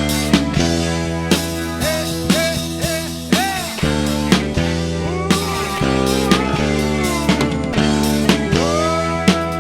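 Live rock band playing an instrumental passage: an electric guitar lead holds and bends notes over bass guitar and a drum kit keeping a steady beat.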